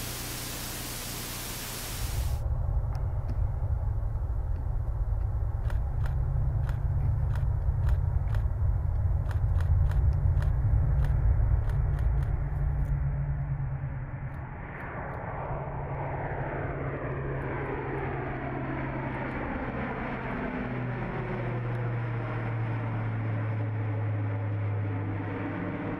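Airbus A400M Atlas's four TP400-D6 turboprops and propellers: a steady hiss for about two seconds, then a loud low propeller drone with scattered clicks. From about 14 seconds in, the aircraft passes overhead, its drone holding a steady low tone while a falling, sweeping whoosh runs through it.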